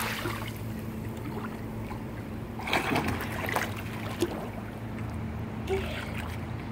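Pool water splashing and sloshing around a child moving through it. The splash of her jump dies away at the start, with further bursts of splashing about three seconds in and again near the end.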